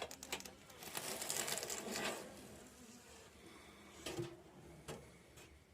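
Honeybees buzzing around the hives, with a louder rustle about a second in and a few short clicks and knocks.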